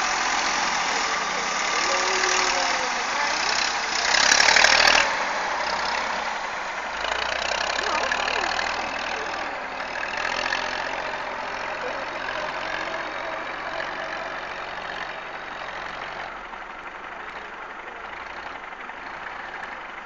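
Tractor engine running, with a louder burst of noise about four seconds in, then gradually growing fainter.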